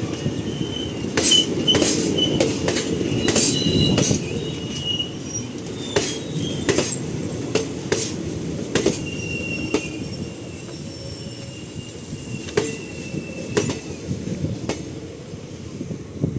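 Passenger train coaches rolling slowly along the track, with a steady rumble, wheels clanking over the rail joints and thin metallic wheel squeal. The clanks come further apart and the rumble fades as the train slows.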